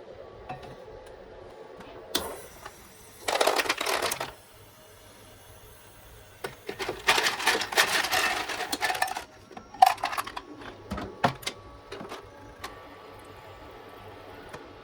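Clinks and knocks of small hard objects being handled, with two longer bursts of noise about three seconds in and again around seven seconds in, each lasting a second or two.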